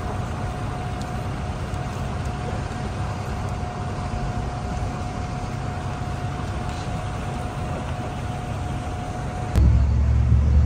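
Steady road rumble of a moving sightseeing bus in city traffic, with a faint steady tone. Near the end a much louder low rumble cuts in suddenly.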